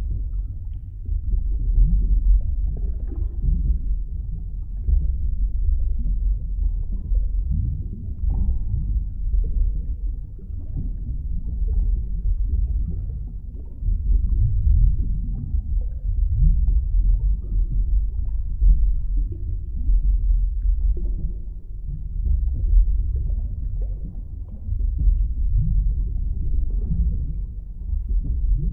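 Underwater ambience sound effect: a deep, muffled rumble with short rising blips scattered through it, swelling and easing every few seconds.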